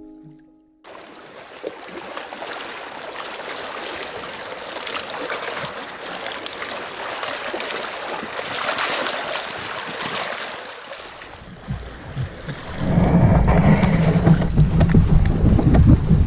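Sea water lapping at a harbour shore, an even hiss with a little wind. About 13 seconds in it turns into a louder, gusty wind rumble on the microphone, with water sloshing around a sea kayak's hull.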